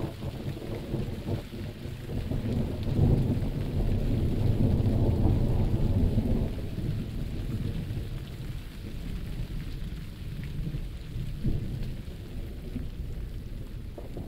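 Steady rain with a long roll of thunder. The thunder swells about two seconds in, is loudest for several seconds, then dies back to a low rumble.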